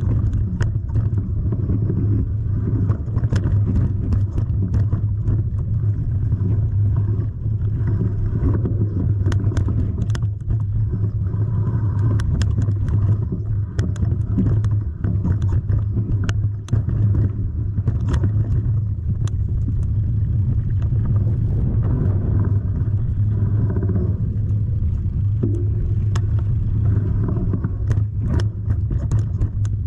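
A motor vehicle running steadily with a deep, even rumble, over many short knocks and rattles.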